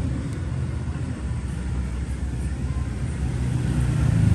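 Steady low rumble of background noise, with no clear events standing out.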